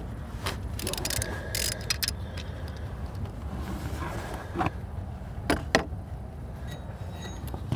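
Scattered metallic clicks and clinks of a ratchet and hand tools at the tensioner pulley bolt, with the loudest knocks a little past halfway, over a steady low background noise.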